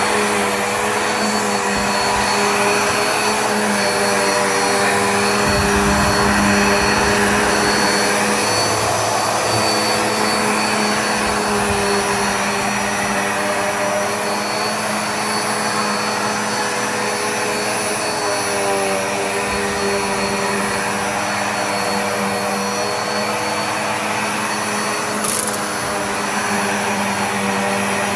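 Black + Decker Air Swivel upright vacuum running steadily as it is pushed over the floor, its motor hum wavering slightly in pitch over the rush of the suction airflow. A short click comes near the end.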